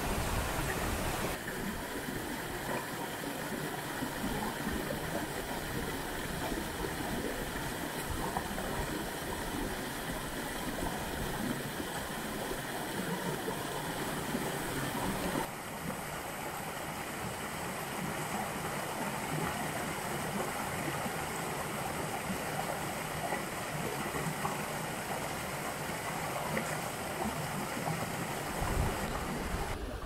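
Steady rush of a forest stream and waterfall, water pouring and splashing over rocks. The sound shifts slightly twice, about a second and a half in and halfway through.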